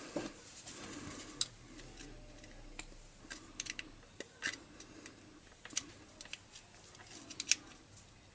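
Scattered, irregular small clicks and ticks of the small metal and plastic parts of a chainsaw oil pump being handled, as a new plunger and ribbed washer are pressed into place.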